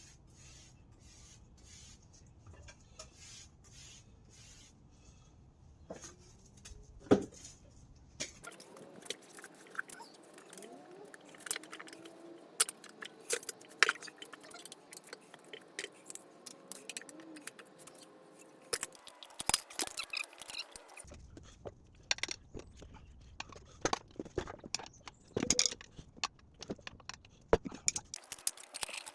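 Scattered clicks, knocks and scrapes of a 10-inch scooter tyre being handled and worked onto its wheel rim, with one sharp knock about seven seconds in and busier clatter from about nine seconds on.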